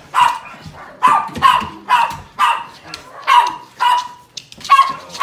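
A vizsla-Labrador mix dog barking and yelping excitedly in a quick series of short, high calls, about two a second, as it greets its returning owners.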